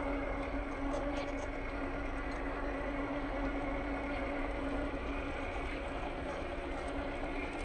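Scale RC crawler's electric motor and gearbox whining steadily as it drives, at an even pitch.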